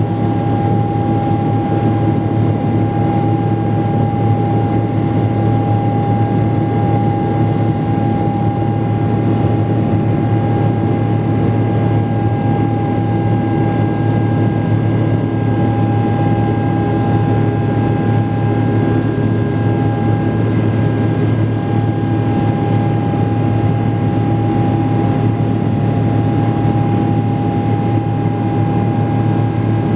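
Boeing 777-300 jet engine and airflow heard inside the cabin beside the engine during the climb after takeoff: a loud, steady drone with a low hum and a constant high whine running through it.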